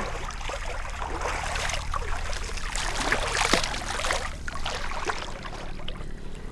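Pool water splashing and dripping as a swimmer hauls himself out over the pool edge, in irregular splashes that die away near the end.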